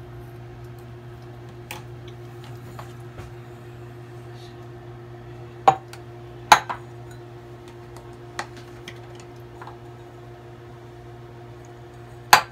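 Small cups and glass beakers of pigment emulsion knocking and clinking as they are handled and set on the work surface. There are a couple of sharp knocks about six seconds in, a lighter tap a little later, and another sharp knock near the end, over a steady low hum.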